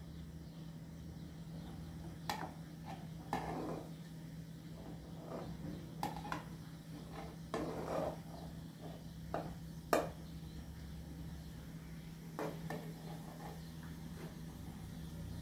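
Metal spoon scraping and clinking against an aluminium cooking pot as cooked grain is scooped out onto a metal tray, in irregular strokes with the loudest clink about ten seconds in. A steady low hum runs underneath.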